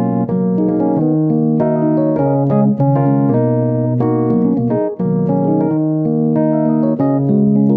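Keyboard played in full sustained chords that change every half second to a second, with a brief break about five seconds in.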